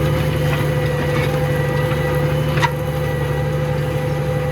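Tractor engine running steadily under load while pulling a plough, with a constant whine over the drone. A single short click a little past halfway.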